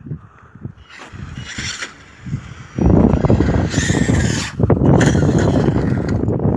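Electric RC truggy with a brushless motor whining as it speeds up, then a brief high-pitched rev of the motor while it is airborne off a jump about four seconds in, and sharp knocks as it lands. A loud low rumble from about three seconds on.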